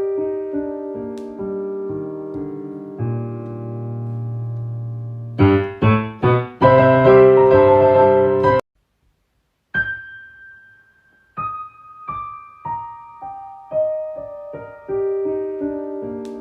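Solo piano music: falling runs of single notes, then a louder passage of crowded chords that cuts off suddenly, a second of silence, and single notes starting again.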